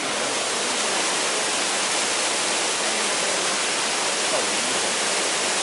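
Steady rush of a waterfall pouring into a pool.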